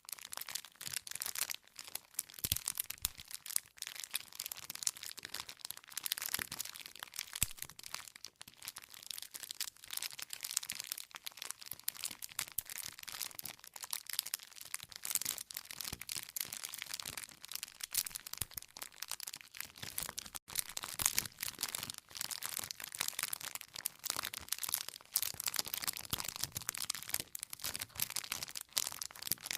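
Campfire burning: wood crackling and popping in dense, irregular snaps.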